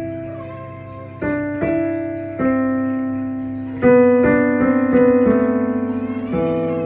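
Piano music: a slow run of struck notes and chords, each left to ring and fade before the next.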